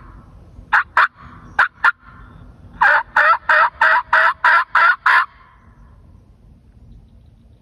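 Hand-worked turkey call making hen yelps: two quick pairs of sharp yelps, then a run of about nine yelps at roughly three a second. It is calling to bring wild turkeys in.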